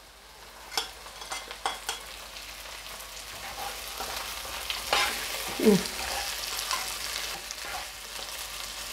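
Fresh broad beans and onion sizzling in oil in a frying pan while being stirred with a plastic spatula, which gives a few sharp clicks and scrapes in the first couple of seconds and again about five seconds in.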